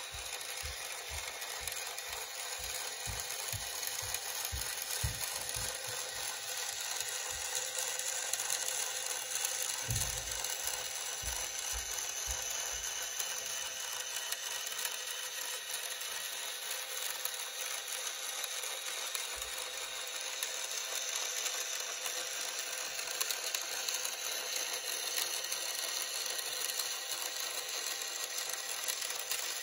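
Small geared electric motor running steadily with a whirring, gear-driven hum, with a string of soft low thumps during the first dozen seconds.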